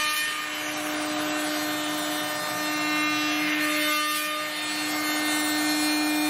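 CNC router spindle running at a steady pitch while its surfacing cutter skims the MDF spoilboard bed flat, giving a steady tone with a rough cutting noise under it.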